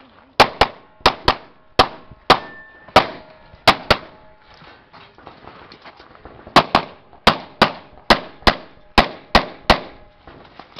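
Rapid pistol shots during a timed action-shooting run, mostly fired in quick pairs as double taps on each target. About nine shots come in the first four seconds, then a pause of about two and a half seconds while the shooter moves, then another quick run of about nine.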